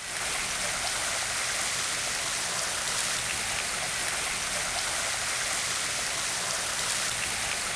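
Steady hiss of splashing water, with a few faint drip-like ticks.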